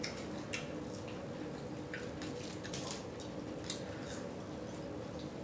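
Faint wet mouth clicks and smacks of someone chewing food, over a steady low hum.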